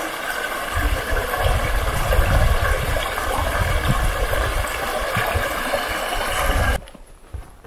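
Small moorland stream rushing over rocks as it spills out of a pool, a steady water noise with an irregular low rumble underneath from about a second in. It stops abruptly about a second before the end.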